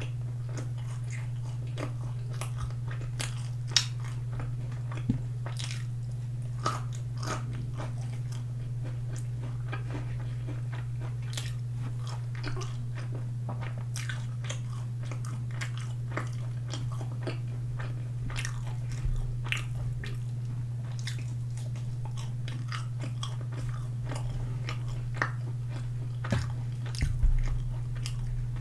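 Close-miked chewing of sauced boneless fried chicken: a steady run of small crunches and wet mouth clicks over a constant low hum, with a few louder knocks near the end.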